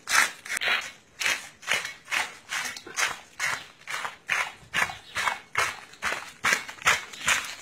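A blade scraping the large scales off a big fish in quick, rhythmic strokes, about three a second. Each stroke is a short rasp as scales are torn loose.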